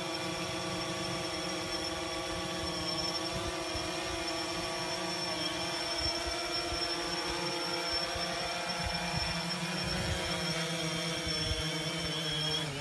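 DJI Phantom 3 Standard quadcopter's four motors and propellers whirring steadily in flight, flying normally on its repaired arm. At the very end the pitch falls as the motors spin down after it lands.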